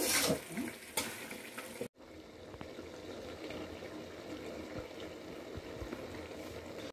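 Chicken pieces hissing and steaming in a steel kadai over a wood fire, loudest in the first half second. After a cut about two seconds in, the kadai, covered with a steel plate, simmers with a steady hiss and a few faint crackles.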